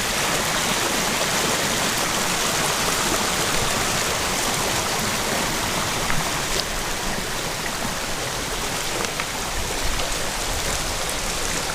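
Steady rush of water from a small stream flowing over rocks.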